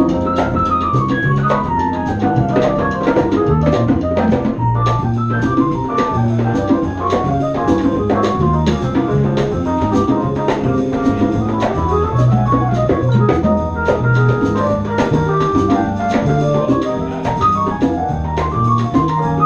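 Live instrumental band of piano, horns, bass, drums and percussion playing. Fast runs of rising and falling notes sit over a stepped bass line and steady cymbal and drum hits.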